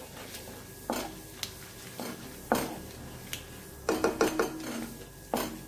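A spatula stirring chana dal and mustard seeds frying in hot oil in a nonstick kadai, knocking and scraping against the pan several times with short ringing clinks. Under the knocks is a steady, faint sizzle of the oil as the dal browns.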